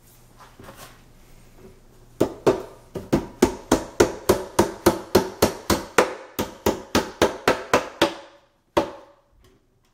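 Claw hammer tapping a plastic peg into a hole in a white particleboard drawer panel: faint handling noise, then a quick, even run of light taps, about four a second, lasting some six seconds, and one last tap shortly after.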